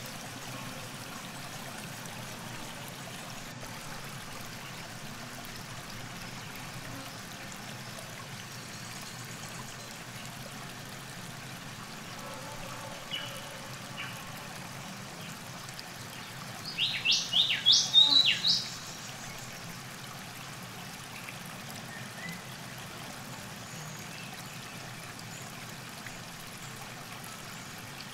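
Steady background hiss of a calm river, with a bird giving two short single chirps and then, about two-thirds of the way through, a quick burst of about eight sharp falling chirps, the loudest sound in the stretch.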